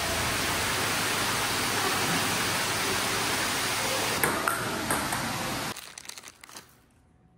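A steady rushing noise with no tone or rhythm in it, a few clicks about four seconds in, dying away to near silence about six seconds in.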